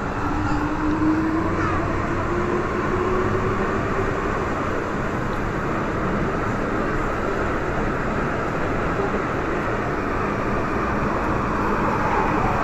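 MTR M-train electric multiple unit pulling out of a station, heard from inside the car: a rising motor whine over the first few seconds as it accelerates, over steady wheel and rail running noise.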